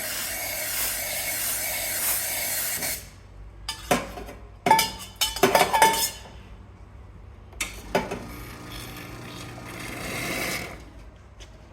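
Nuova Simonelli Aurelia II three-group commercial espresso machine being run: a loud hissing rush for about three seconds, then several sharp metallic clinks and knocks, then a softer rushing hiss with a low hum for a few seconds.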